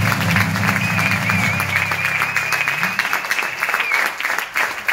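Audience applauding in a concert hall, with a long wavering whistle above the clapping. The last guitar chord of the song rings under the applause and dies away about halfway through.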